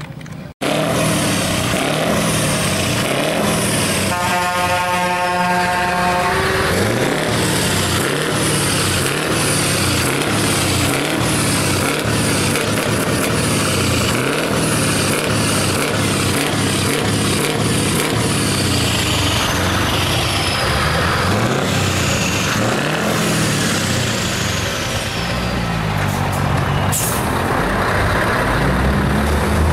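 Heavy truck diesel engines running and revving, with an air horn blast lasting about two seconds from about four seconds in.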